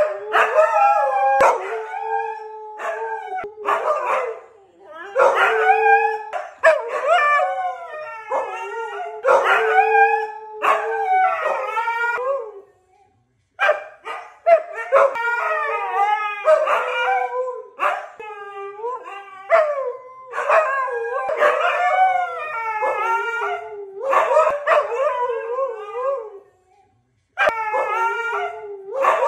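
Siberian huskies howling in a long string of wavering calls that rise and fall in pitch, with short breaks between them.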